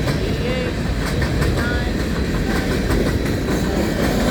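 Empty coal hopper cars rolling past on the track, steady rumble with wheels clacking over the rail joints and a few brief, faint high squeals from the wheels.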